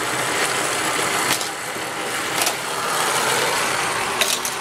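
Motorized booster of a plastic toy car track running with a steady whir, with a few sharp clacks of toy cars hitting the track, about a second in, midway, and twice near the end.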